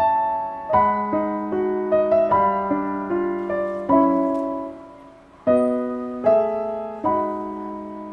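Background piano music: slow chords and single notes struck and left to ring out, with a short lull a little past the middle before the next chord.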